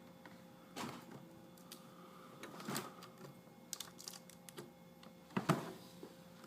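Scattered clicks and knocks of laptop parts being handled and fitted together during reassembly, with a few louder knocks, the loudest about five and a half seconds in.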